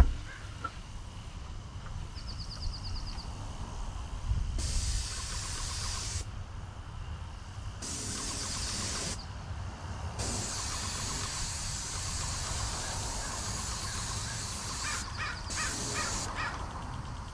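Airless paint sprayer hissing in four bursts, starting and stopping sharply as the spray-gun trigger is squeezed and released, the longest about five seconds. Birds call briefly about two seconds in and again near the end.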